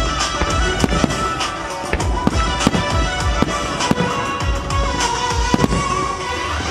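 Fireworks shells bursting in quick succession, many sharp bangs a second, over loud music: a starmine display fired to a musical accompaniment.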